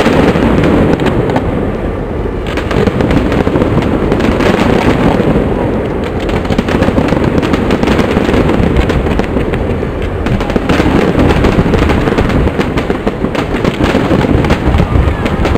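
Fireworks display: many shells bursting and crackling in quick succession, their bangs running together into a continuous loud din.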